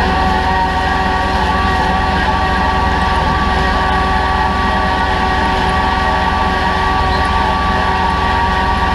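Kubota L3901 compact tractor's three-cylinder diesel engine running steadily under load while pulling a disc harrow through the soil, with a steady high whine over the engine.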